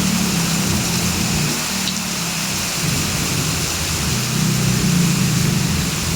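Heavy rain falling in a steady hiss, with a low rumble underneath that swells and fades.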